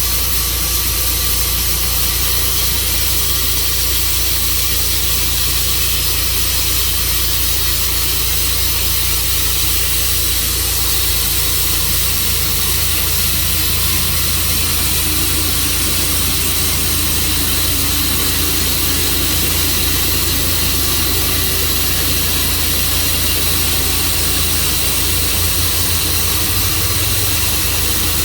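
Portable sawmill's engine running steadily under a broad hissing noise, its note shifting slightly about twelve seconds in.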